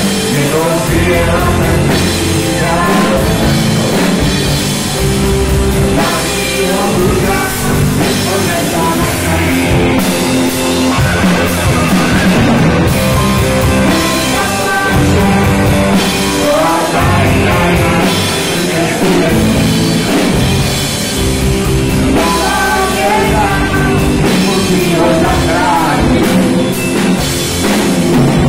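Live rock band playing: electric guitars and drums, with a woman and a man singing into microphones.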